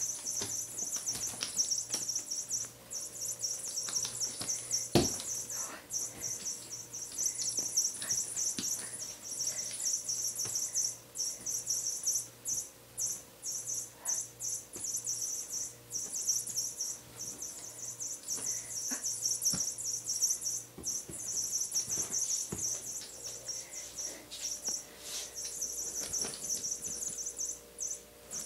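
Insects chirping in a high-pitched, pulsing trill that breaks off and resumes every few seconds. Scattered light knocks and rustles come from a kitten playing on a bed, with one sharper knock about five seconds in.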